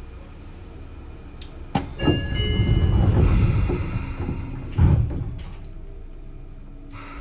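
Sotetsu 9000-series train's passenger doors closing at a station stop: a click, then a rush of the doors sliding shut with a few brief high tones, and a heavy thud as they close about five seconds in. A low hum of the standing train runs underneath.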